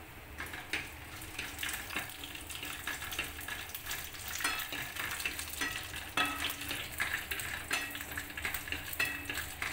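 Coconut oil sizzling in a nonstick pan as dried red chillies, sliced onion and curry leaves fry for a Kerala tempering (varavu), with a wooden spatula stirring and scraping against the pan in frequent short clicks. The chillies are crisping in the hot oil.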